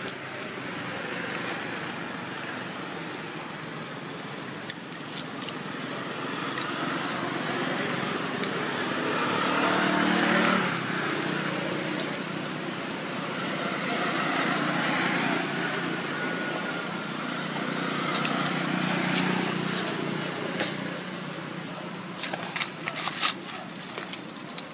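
Outdoor background of road traffic at a distance, swelling and fading a few times as vehicles pass. Scattered sharp clicks and crackles, such as dry leaves being disturbed, come through, thickest near the end.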